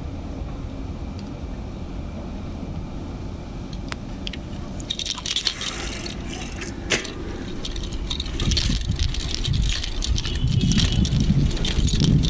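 Bicycle being ridden: a steady low rumble, with parts of the bike rattling and jangling over bumps from about five seconds in. The rumble grows louder near the end.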